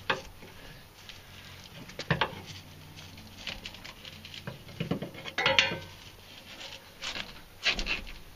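Irregular metallic clinks and knocks of hand tools on the truck's exhaust as a worn rubber exhaust hanger is worked loose, some single and some in quick clusters.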